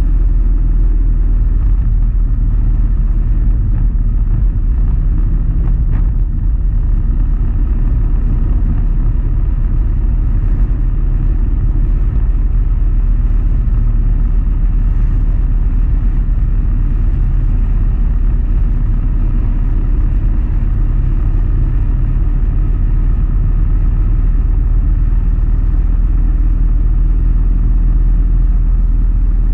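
Motorcycle engine running steadily at cruising speed, heard from the moving bike as an even, low-heavy drone.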